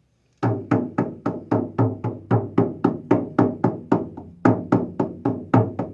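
A 10-inch frame drum with laced hide struck in a steady beat, about three to four strikes a second, each hit ringing briefly. The strikes soften for a moment about four seconds in, then pick up again.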